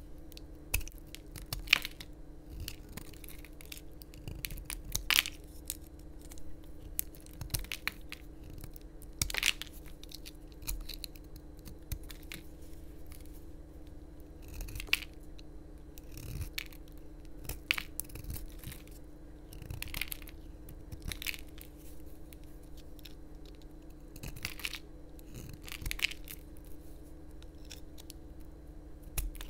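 Utility knife blade cutting and shaving a bar of soap: a run of short, sharp cracks and scrapes at an uneven pace as chips and curls break off, over a faint steady hum.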